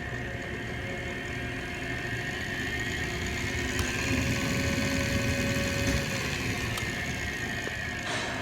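Hardinge DSM 59 precision turret lathe running under power, its spindle drive giving a steady whir and whine. Partway through, the whine climbs in pitch and the sound grows louder as the variable speed control is turned up, then it eases back down near the end.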